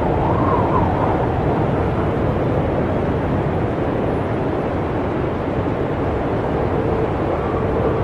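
Snowstorm wind blowing steadily, a deep rushing rumble with a faint low howl that wavers, briefly rising and falling in pitch in the first second.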